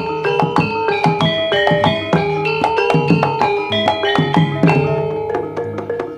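Live Javanese gamelan music for a jaranan dance: metallophones ringing out a quick run of struck notes over kendang hand-drum strokes.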